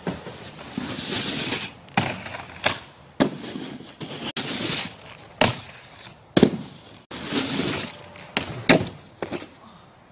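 Snowboard hitting and sliding on a jib box and packed snow: a series of sharp knocks and clacks, with stretches of scraping hiss between them, cut off abruptly a couple of times.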